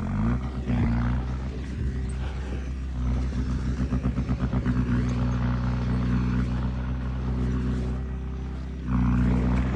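Diesel engine of heavy earthmoving equipment running steadily. Its pitch rises briefly at the start, a fast rhythmic pulsing runs for a couple of seconds in the middle, and it gets louder just before the end.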